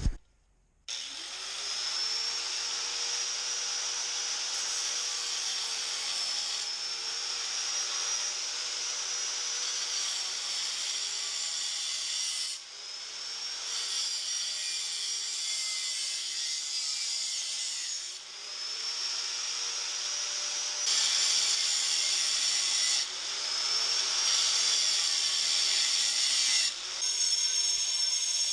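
Power tool cutting steel flat bar: a steady high whine over a grinding hiss, the pitch sagging and recovering as it bites. It starts about a second in and eases off briefly twice, around the middle.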